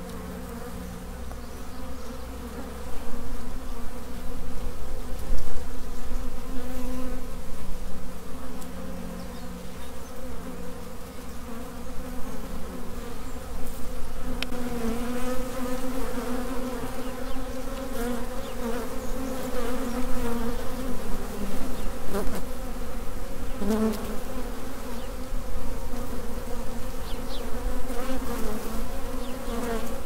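A clustered swarm of honey bees buzzing, many wingbeats humming together in a steady, wavering drone that grows louder about three seconds in.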